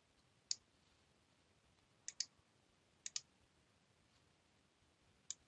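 Computer mouse button clicking: a single click, then two quick double-clicks, then another single click, over a near-silent background.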